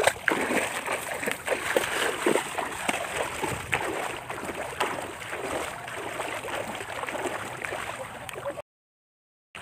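Legs wading through shallow water: continuous sloshing with many small splashes, cutting off suddenly about a second before the end.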